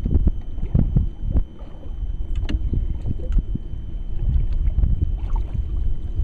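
Wind buffeting the microphone on a bass boat, a low rumble with scattered knocks and bumps from the boat, over a faint steady high whine.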